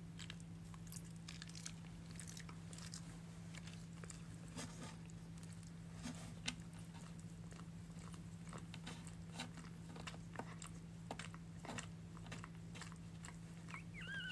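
Newborn puppies making scattered soft wet clicks and smacking sounds over a steady low hum. Near the end one puppy gives a short, high squeak that rises and falls.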